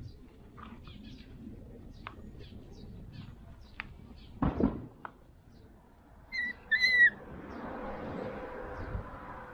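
Puppies play-fighting: a brief scuffle, then two short, high yelps about half a second apart, the loudest sounds here. Faint bird chirps run through the background, and a steady faint hum sets in near the end.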